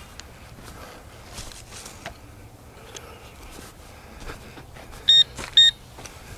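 Small handheld metal detector giving two short, high electronic beeps about five seconds in, each lasting about a quarter second: it has picked up the nail under the wood. Between the beeps there is only a low background hum and a few faint clicks.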